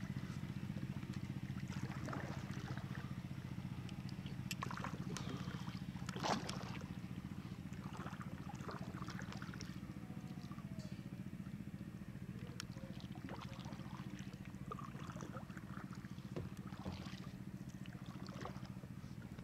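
Small outboard motor on a dinghy running steadily at low speed, a low even hum with a fast pulse. A few sharp knocks break through, the loudest about six seconds in.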